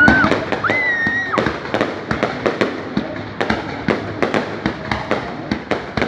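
Fireworks display: rapid, irregular bangs and crackling pops, several a second, with two whistling tones in the first second and a half.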